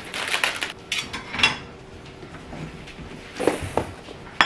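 Plastic shaker bottle shaken hard for about a second and a half, the drink sloshing and rattling inside. Later come a few light knocks of plastic tubs handled on a kitchen counter and a sharp click near the end.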